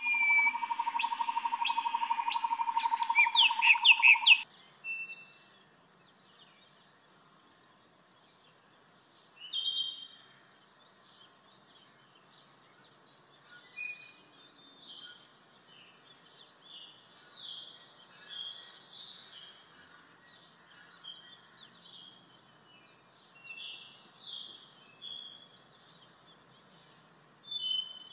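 A loud opening sting of a steady tone under quick rising chirps lasts about four seconds. Then a brahminy starling sings short bursts of slurred whistled notes every few seconds, over a steady high-pitched hiss.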